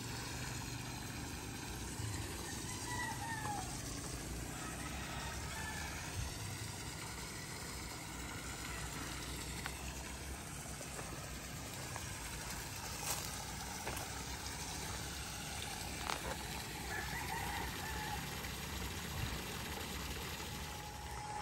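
Rooster crowing faintly in the distance, twice, the calls about fourteen seconds apart, over a steady background hiss.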